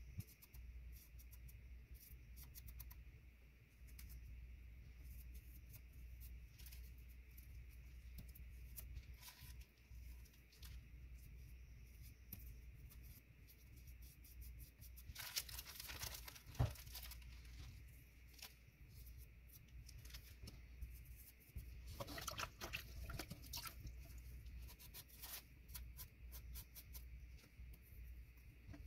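Faint crinkling and rustling of a grout-filled plastic zip-top bag squeezed by hand, with scattered small crackles, louder twice: about halfway through and again a few seconds later.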